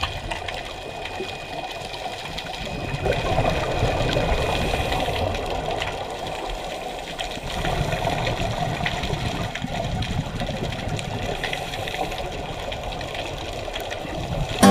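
Underwater sound picked up by a dive camera: a continuous watery rumble with the gurgle of scuba divers' exhaled bubbles, swelling louder about three seconds in and again around eight seconds.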